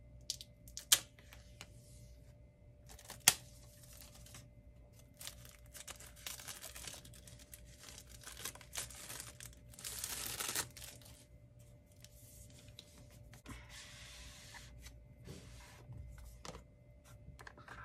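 Cardboard Apple Pencil box being unsealed and opened by hand: two sharp taps in the first few seconds, then stretches of tearing and scraping as the seal comes off and the box is slid apart, strongest about ten seconds in.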